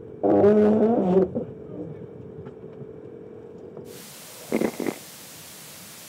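A crew member shouts for about a second over a steady hum on deck of an ocean racing yacht. About four seconds in the sound cuts to a steady rush of wind and breaking sea, with two brief short sounds soon after.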